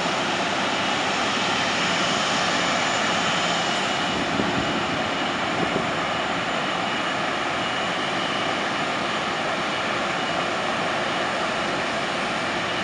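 Boeing 777-200's GE90 jet engines at taxi idle as the airliner rolls slowly toward the gate: a steady whine of several high tones over a broad rushing noise.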